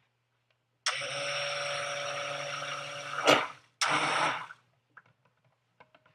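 Immersion (stick) blender running in soap batter in two bursts, about three seconds and then under a second, with a sharp knock near the end of the first. It is mixing glycerin-dissolved mica colorant into a batter that has thickened fast, which the maker puts down to lye water that was still too hot.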